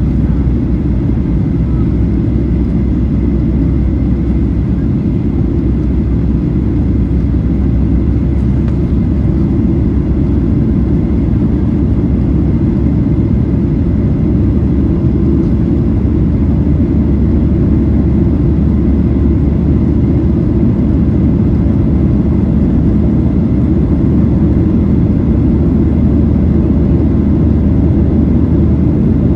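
Steady low rumble of engine and rushing air inside the cabin of a Boeing 737-800 climbing after takeoff, heard from a window seat over the wing, its CFM56 turbofans under climb power, with a faint steady whine on top.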